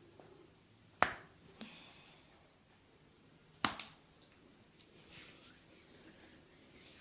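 Joints cracking: one sharp crack about a second in, then a quick double crack just before four seconds in.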